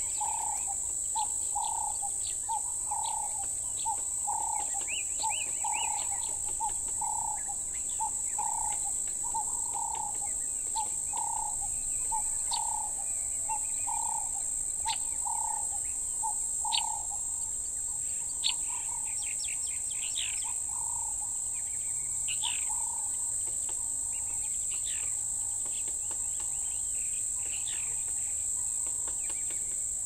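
Bushveld dawn chorus: one bird repeats a low note about three times every two seconds for the first half, then thins out, while other birds add short, higher chirps. A steady, high-pitched insect drone runs underneath.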